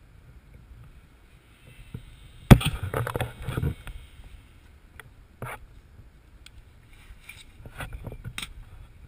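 Wind rumbling on the microphone, with a loud sharp knock about two and a half seconds in followed by about a second of rubbing and clatter, and a few lighter knocks later.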